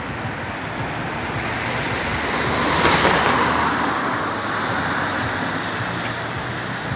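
A car passing close by on the street: its tyre and engine noise swells to a peak about three seconds in, then fades away.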